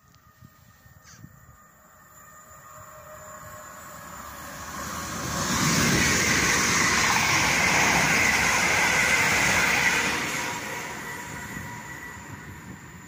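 Electric multiple unit passing through the station at speed. The noise of its wheels on the rails builds over about five seconds, stays loud for about four seconds as the coaches go by, then fades as it moves away.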